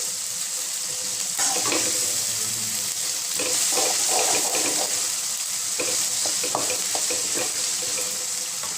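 Onions and ginger-garlic paste sizzling in hot oil in a pan, with a spatula scraping and knocking against the pan at irregular intervals as they are stirred and sautéed.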